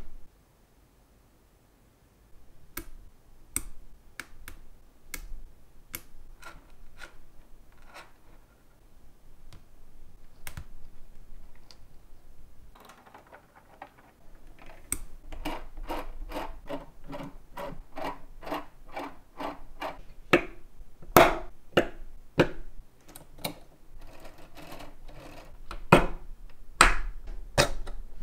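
Lego Technic plastic parts clicking and snapping together as they are pressed into place by hand, in sharp separate clicks after a brief pause at the start. In the middle comes a denser rattle of plastic chain links being laid along the rail.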